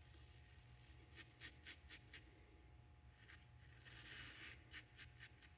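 Faint, short scratching strokes of a double-edge safety razor with a Bolzano blade cutting stubble through shaving lather, several in quick succession.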